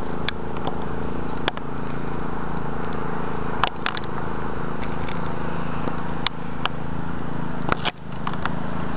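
Steady low machine hum with a few short, sharp clicks scattered over it.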